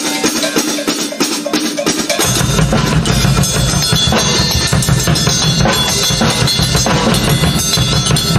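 Drum kit improvisation: a fast, busy run of snare, rim and bass drum hits. About two seconds in, a deep low layer joins and carries on under the hits.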